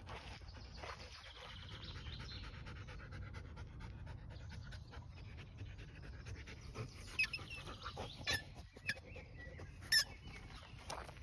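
Belgian Malinois panting rapidly and evenly, a hot, tired dog cooling down in the shade. A few sharp clicks come in the second half, the loudest near the end.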